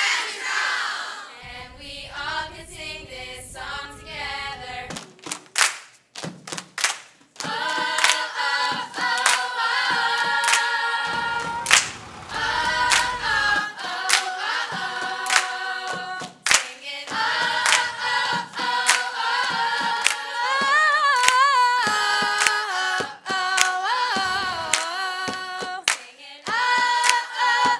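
A short burst of crowd cheering at the start, then a choir singing a cappella in harmony, with hand claps keeping the beat.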